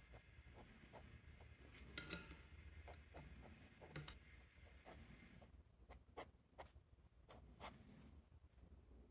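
Faint scratching of a fountain pen nib on paper: a run of short, quick hatching strokes, the loudest cluster about two seconds in.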